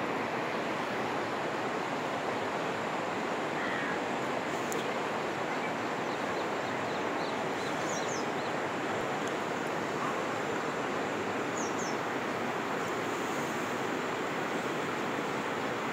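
Floodwater rushing steadily as it spills over a flooded field's edge, with a few faint high bird chirps around the middle.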